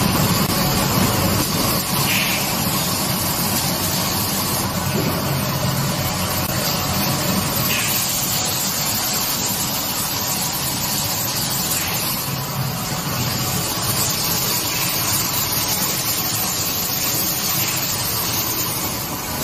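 Automatic two-colour LED screen printing machine for cosmetic jars running: a steady mechanical hum with a constant hiss over it.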